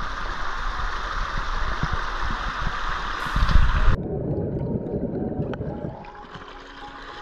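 Rushing water of a shallow rocky creek, a steady hiss. About four seconds in it changes abruptly to a deeper gurgling, the camera at or just under the water surface, then settles to quieter flowing water near the end.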